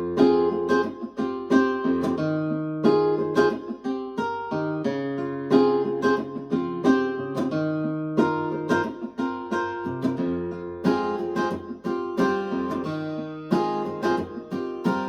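Acoustic guitar music, a steady run of plucked notes and chords, each struck sharply and ringing away, played back through a 1995 Mission 761i loudspeaker.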